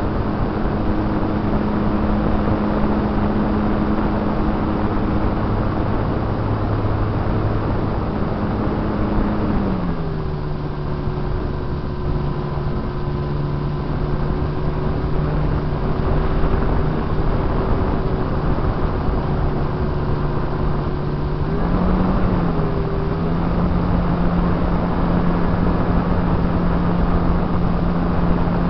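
RC plane's motor and propeller droning, picked up by the onboard camera with heavy wind rush from the airflow. The drone drops in pitch about ten seconds in as the throttle is eased back, then picks up slightly again near 22 seconds.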